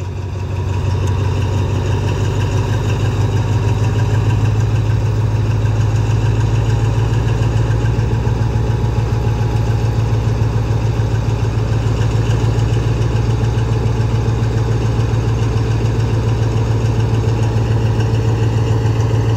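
Diesel engine of an Alstom diesel-electric locomotive running as it pulls slowly past: a deep, steady drone with a fine rapid pulse, swelling over the first second.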